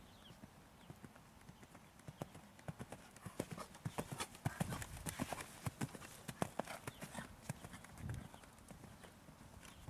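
Hoofbeats of a grey mare cantering on sand arena footing. A quick run of sharp strikes starts about two seconds in, is thickest in the middle and thins out near the end.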